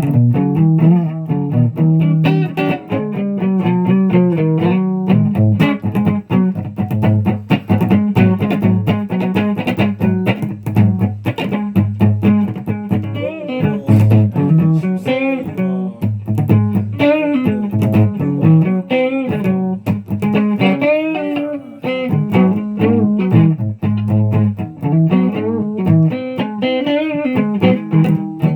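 Guitar music: an instrumental passage of quick plucked notes over a low bass line, with some notes bent in pitch.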